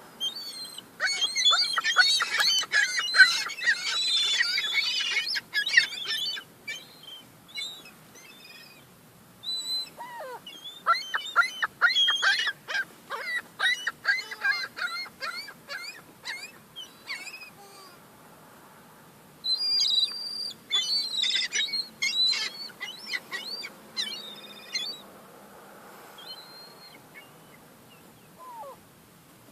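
Young gulls fighting over crumbs, calling in rapid strings of short, high-pitched squealing notes. The calls come in three loud bouts with short quieter lulls between them.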